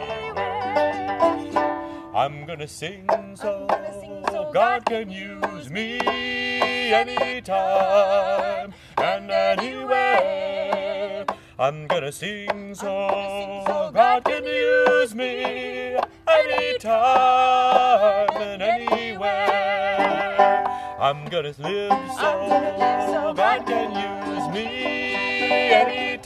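A man and a woman singing a gospel spiritual in duet, with wavering vibrato on held notes, accompanied by a strummed and picked open-back banjo and a small acoustic string instrument.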